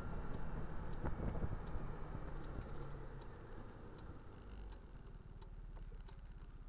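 Kymco Dink Street scooter's single-cylinder engine settling down to a steady idle after a hard run, growing quieter over the first few seconds, with faint light ticks over it.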